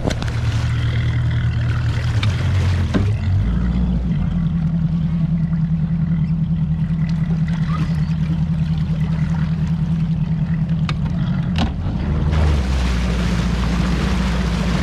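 300 hp Mercury outboard on a bass boat running steadily at idle as the boat is eased up to its trailer at the ramp; the engine note shifts a few seconds in and again near the end with small throttle changes.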